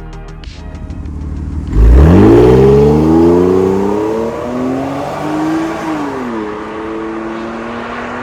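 BMW E46 320Ci's M54B22 2.2-litre straight-six heard through an MS-R valved exhaust muffler. It comes in suddenly and loudly, revs up sharply and holds high, blips once more, then drops to a steady idle.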